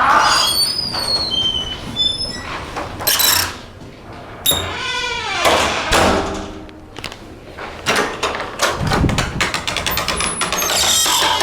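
Creaky doors on Sargent door closers swinging and shutting: creaks that slide in pitch, the longest falling away about five seconds in, with sharp knocks and mortise-lock latch clicks, and a dull thud about nine seconds in followed by a quick run of clicks.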